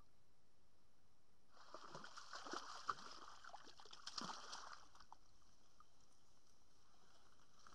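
Water splashing and sloshing in a burst of about three seconds, starting a couple of seconds in.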